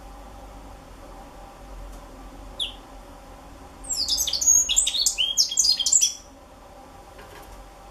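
Young African citril singing: one short down-slurred call note, then a quick jumble of high, varied notes lasting about two seconds.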